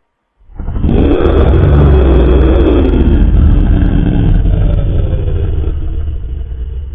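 Designed Quetzalcoatlus creature-call sound effect: a long, deep, rumbling roar that starts about half a second in, slowly falls in pitch and fades near the end.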